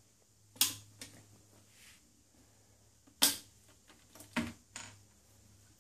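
Sheet-metal top cover and front panel of a Hikvision DS-9016HWI DVR being worked loose and slid off the chassis: several sharp clicks and knocks, the loudest about three seconds in.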